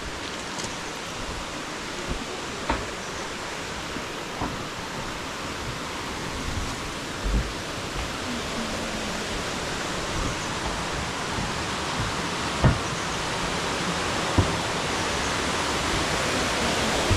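Rushing water of a waterfall and river: a steady roar that grows slowly louder, with a few soft thumps along the way.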